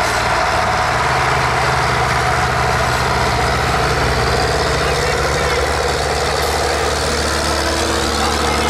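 Tractor diesel engine idling steadily, with no revving.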